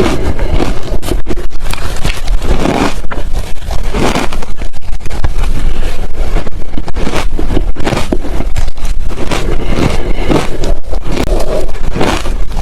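Ice being chewed close to the microphone: an irregular, continuous run of crunches and cracks over a low rumble.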